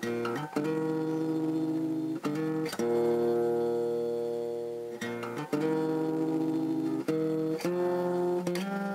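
Acoustic guitar music: strummed chords left to ring, changing every second or so.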